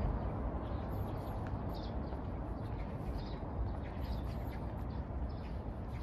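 Outdoor ambience: a steady low rumble with short, high chirps of small birds scattered through it.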